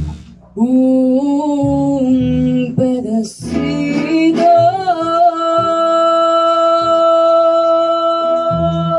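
A mariachi band playing and singing, with strummed guitars underneath. A long note is held steady through the second half.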